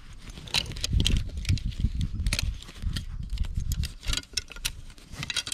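Fishing tackle being handled as a fly rod is taken down and a light rod got ready: a run of irregular small clicks and knocks over a low rumble.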